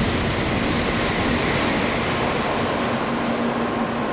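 Steady loud rushing noise of a Tokaido Shinkansen N700-series train running through the station on the through track at speed, with a steady hum underneath.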